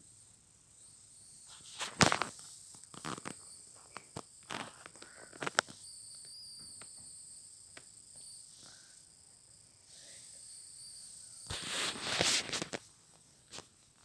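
Scattered sharp clicks and short rustles, then a longer rustle about twelve seconds in, over a faint steady high-pitched hum.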